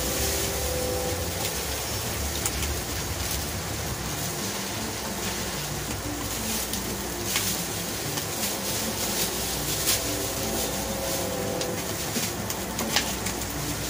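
Steady background noise with a wavering low mechanical hum, which the cook calls background noise, and a few light clicks from a basting brush working against a small metal sauce pot.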